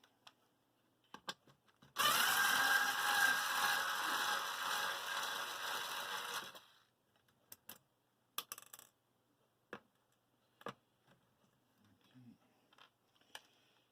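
Small electric screwdriver whirring for about four and a half seconds as it backs out the internal screw holding the hard drive in the satellite receiver. A few light clicks and taps of the screw and metal parts follow.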